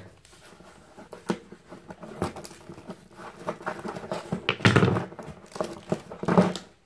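Scissors snipping and scraping at packing tape on a cardboard box, with scattered clicks and rustles from handling the box and tape. Two louder scraping rustles come near the end as the tape is pulled.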